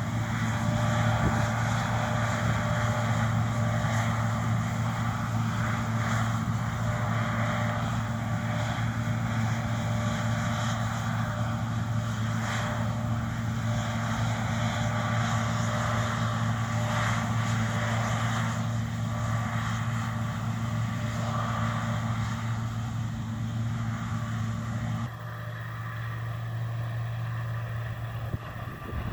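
John Deere T670i combine harvester running, a steady low engine drone under a broad rushing noise. About 25 seconds in, the sound drops a little quieter and its higher part thins out.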